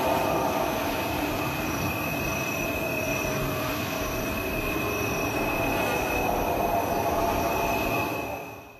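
Steady rumbling noise with a high, held whine over it, fading out about eight seconds in.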